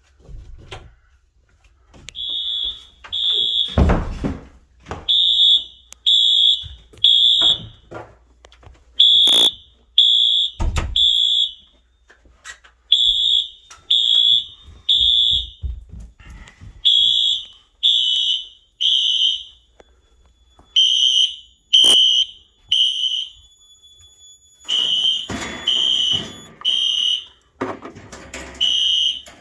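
Fire alarm system sounding in the temporal-3 evacuation pattern: three high beeps about a second apart, then a short pause, over and over. The system is in alarm from a smoke detector being tested with smoke. A few knocks and some clatter come in between the beeps.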